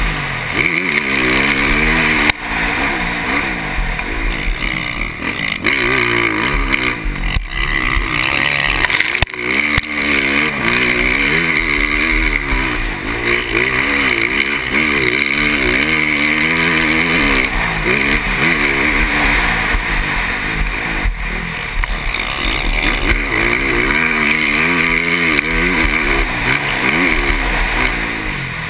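KTM motocross bike engine revving hard, its pitch rising and falling over and over as the rider works the throttle and gears around the track, with a few sharp knocks along the way.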